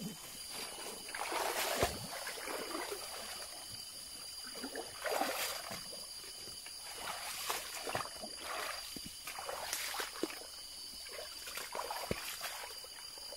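Footsteps splashing and rustling along the edge of a small flowing forest stream, one step every second or two, over a steady high thin whine.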